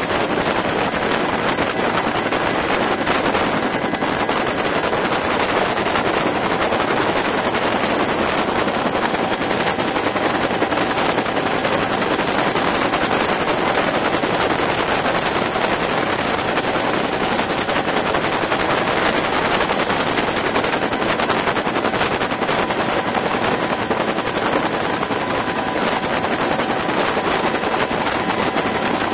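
Bell UH-1 "Huey" helicopter in steady cruise flight, heard from inside the cabin: the rapid, continuous beat of its two-bladed main rotor with a steady turbine whine over it.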